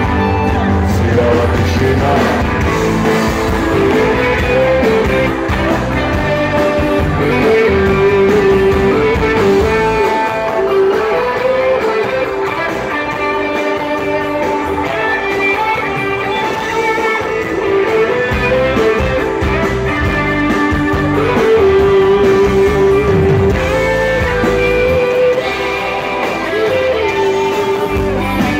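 Rock band playing live: electric guitars, bass guitar and drums, with a guitar melody carrying the tune and no words heard.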